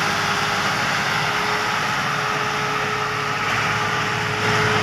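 Massey Ferguson 240 tractor's three-cylinder diesel engine running steadily under load as it pulls a heavily loaded mud trolley.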